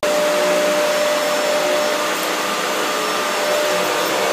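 Vacuum cleaner running steadily: an even rushing of air with a constant motor whine.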